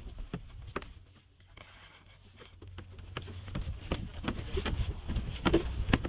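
Footsteps climbing wooden stairs, a series of knocks on the treads. Wind rumbles on the microphone, growing stronger in the second half.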